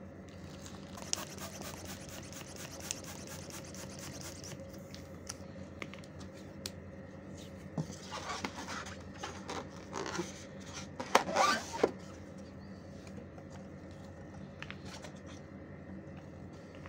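Latex balloons being handled, rubbing and squeaking against each other in irregular scrapes, loudest about two-thirds of the way through, over a steady low hum.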